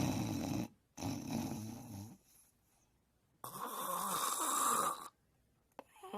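Snoring: a low, rattling snore in two pulses, then after a pause of about a second a longer, breathy, hissing breath.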